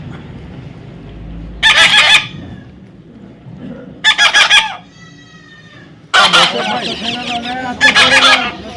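Parrot giving loud, harsh squawking calls: one about two seconds in, another about four seconds in, then a longer run of calling from about six seconds in to near the end.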